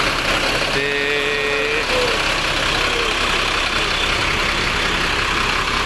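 Intercity bus diesel engine idling steadily, running again after repair work had kept it from starting.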